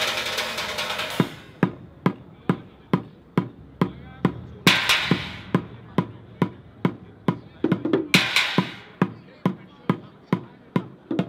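Drumming with sticks on an improvised kit of pots, pans, plastic buckets and small drums. A busy flurry of hits gives way about a second in to a steady pulse of sharp strikes, a little over two a second, with a ringing metal crash twice.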